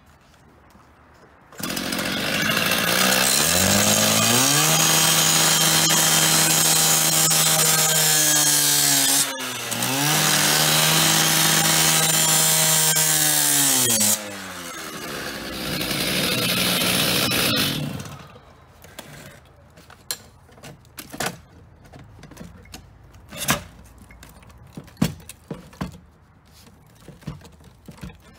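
Electric power cutting tool spinning up and cutting into the payphone's metal housing for about sixteen seconds, briefly slowing and spinning back up about halfway through before winding down. Scattered knocks and clanks follow.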